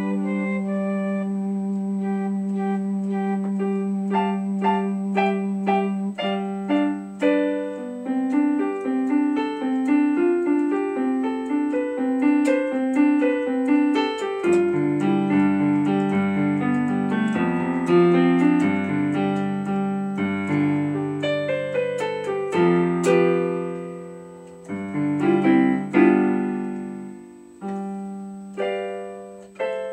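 Keyboard music in a piano voice: a melody over chords, opening on a long held low note, with deeper bass notes joining about halfway through. Near the end it thins to a few struck notes left to ring and die away.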